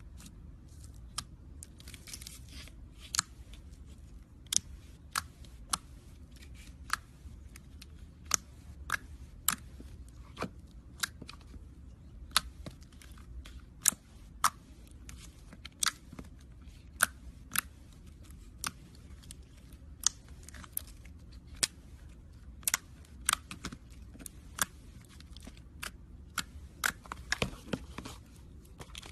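Slime being squeezed and poked by hand, giving sharp, irregular pops and clicks about once or twice a second over a low steady hum.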